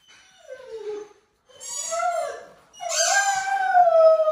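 Great Dane howling: three drawn-out howls. The first slides down in pitch, and the last is the longest and loudest, held steady before trailing downward.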